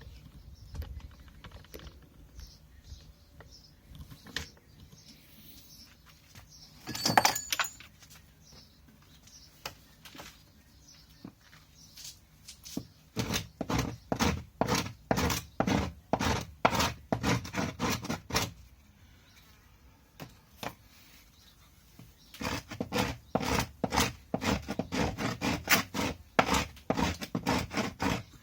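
The cut end of a wooden branch rubbed back and forth on the floor to smooth it, giving rhythmic scraping strokes about three a second in two long runs. A single knock comes before the rubbing starts.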